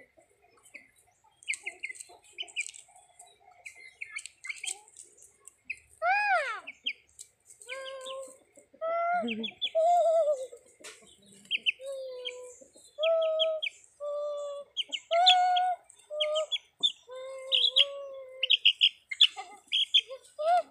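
Chickens calling: quick high chick peeps throughout, and from about six seconds in a run of longer, lower pitched calls, the loudest sounds, each lasting under a second.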